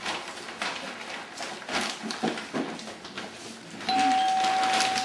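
A doorbell rings about four seconds in with one long steady tone lasting about two seconds, over clattering and rustling in a kitchen.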